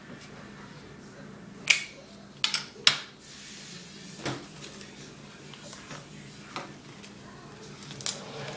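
Paper and sticky tape being handled: three or four short, sharp rips close together about two to three seconds in, then a few softer ones, over a faint steady low hum.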